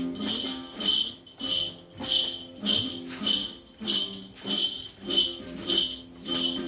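Music for a xòe circle dance: a metallic jingling beat, like small bells or cymbals, struck about every half second over a low, steady melody.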